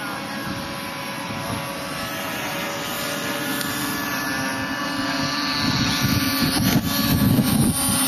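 Radio-controlled model airplane's motor whining steadily in flight, with a low rumble of wind on the microphone that grows stronger in the last couple of seconds.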